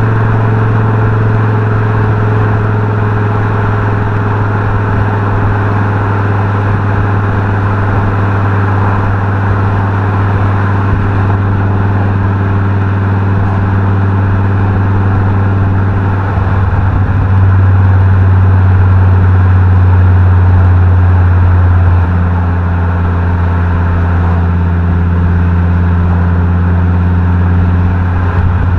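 Fiat Coupé 20V Turbo's five-cylinder turbo engine and exhaust droning steadily on the move, the note sagging slowly lower. It briefly breaks off about sixteen seconds in, then comes back louder for several seconds before easing again.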